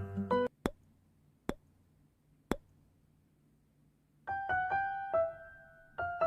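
Background piano music that breaks off shortly after the start, leaving about four seconds of near silence with three sharp clicks about a second apart, then the piano resumes with slow notes.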